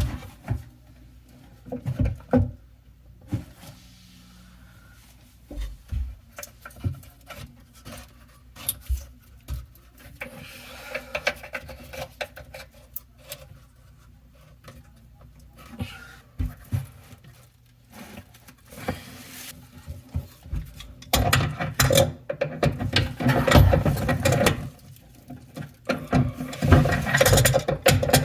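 Scattered clicks and knocks of parts and hand tools being handled under a bathroom sink as the new faucet's mounting nut is tightened, turning into a denser, louder run of rattling and scraping for the last several seconds.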